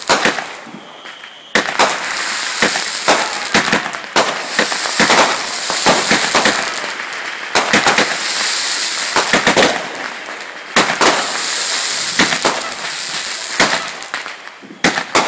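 Backyard consumer fireworks going off in a dense barrage: continuous crackling packed with many sharp bangs, after a short lull about a second in.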